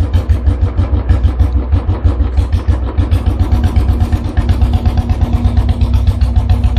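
Royal Enfield Bullet 500's single-cylinder engine running at a steady idle with an even, regular thump, just after a full engine rebuild.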